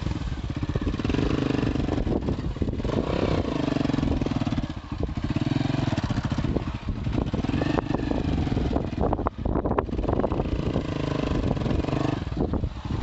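Honda CB125 motorcycle engine running under way, its pitch rising and falling several times as the throttle is opened and eased, with some knocks and rattles from the road.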